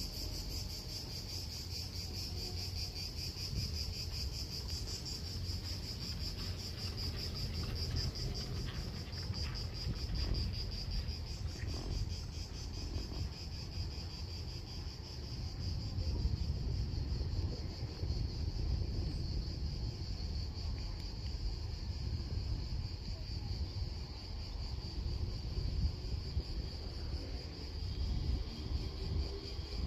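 A steady, high-pitched chorus of insects buzzing with a fast pulsing texture, over a low rumble of wind on the microphone.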